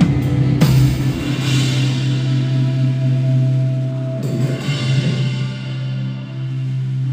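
A band playing live, with a drum kit whose cymbal crashes come in the first couple of seconds, over a long held bass note and sustained chords.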